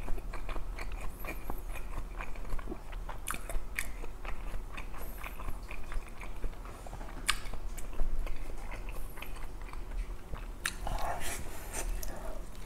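Close-up chewing of a large steamed dumpling: wet mouth clicks and smacks. Near the end comes a fresh bite into the dumpling.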